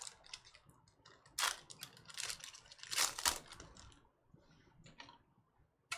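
Football cards being pulled from packs and flipped through by hand: short, irregular clicks and rustles of card stock and pack wrappers, loudest about a second and a half in and again around three seconds in.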